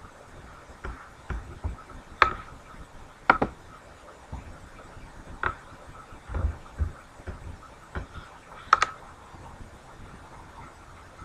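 Lhasa Apso sneezing several times in short, sharp bursts, with a few soft low thumps in between.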